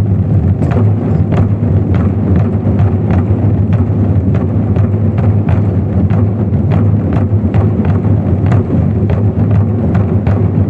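A Twenty-Four Festive Drums ensemble of large Chinese drums played together in a dense, continuous roll, with sharp accented strikes about twice a second.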